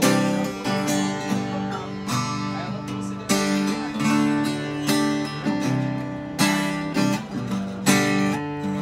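Giannini Craviola CRA36S acoustic-electric guitar strummed by hand, playing a rhythmic run of chords that change every second or so.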